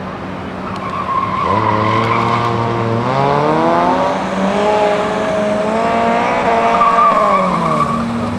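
Autocross car engine running hard, its pitch climbing under acceleration, stepping, then falling and climbing again as the driver works the throttle through the course. Tires squeal in the turns, about a second in and again near the end.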